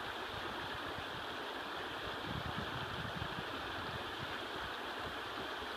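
Shallow river running over shingle: a steady rushing of water.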